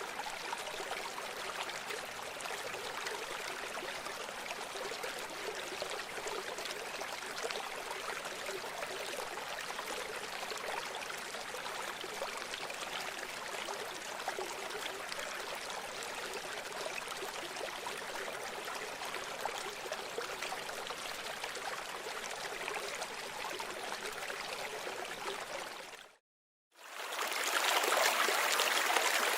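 River water running steadily as an even rushing noise. Near the end it fades out to a second of silence, then a louder stretch of running river water starts.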